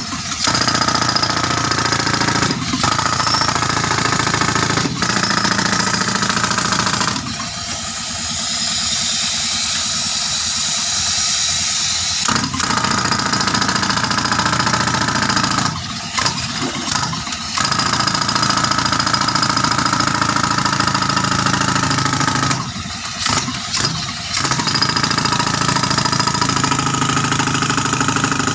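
Pneumatic breaker hammer, fed by a tractor-driven air compressor, hammering rapidly into rock in long bouts over the compressor engine's steady running. The hammering stops briefly several times and is softer for a few seconds near the middle.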